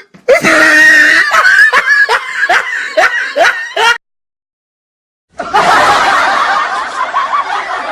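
Laughter sound effects. First, one voice laughs in quick, even bursts of about three a second and cuts off about four seconds in. After a second and a half of silence, many people laugh at once.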